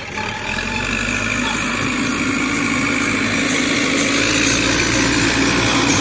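Cat 424B backhoe loader's diesel engine running steadily under load while the front bucket pushes soil, getting louder over the first couple of seconds and then holding.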